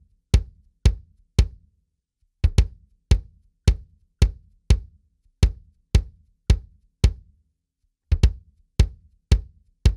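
22-inch bass drum kicked with a pedal beater, played alone: short, dry, tightly damped thumps about two a second, with a break of about a second twice. The drum has a coated single-ply Remo Ambassador batter with muffling and a reso head with a large port hole, tuned for a short, controlled kick.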